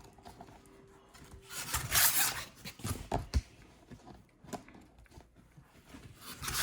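Card binder pages being turned, the plastic sleeve pages swishing about two seconds in, with a couple of sharp clicks soon after and another swish near the end.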